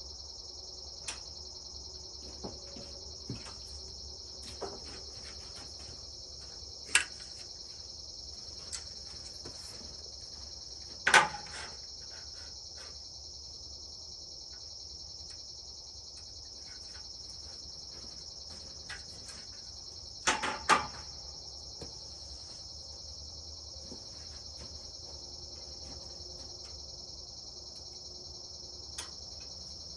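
Steady high-pitched chorus of insects such as crickets, with a few sharp knocks and clatters, the loudest about 11 seconds in and a double knock about 20 seconds in.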